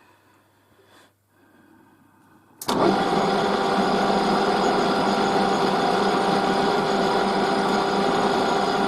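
A metal lathe starting up suddenly nearly three seconds in and then running steadily with an even motor hum and whine, ready to turn a tapered bush. Before it starts there is only a faint click.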